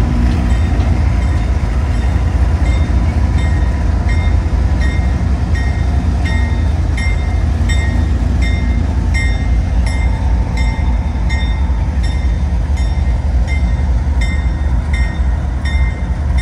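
WNY&P diesel-electric locomotives running past with a heavy, steady low engine rumble. From about two seconds in, a short, high metallic ding repeats about every half to two-thirds of a second.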